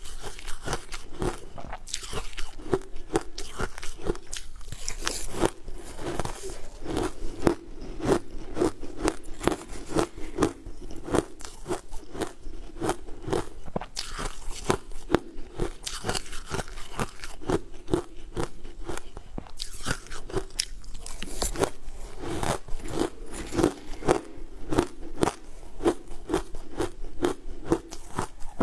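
Close-miked crunching and chewing of crumbly green frozen food, a steady run of crisp bites at about two crunches a second.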